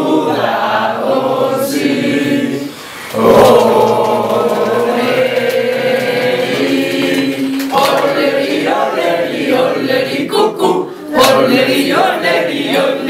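A small group of young voices singing together without accompaniment, with a brief break about three seconds in followed by long held notes.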